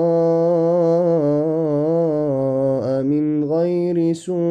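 A man reciting the Quran in melodic tajweed style, with no instruments, holding a long drawn-out vowel whose pitch gently wavers. There is a brief break about three seconds in and a quick breath near the end.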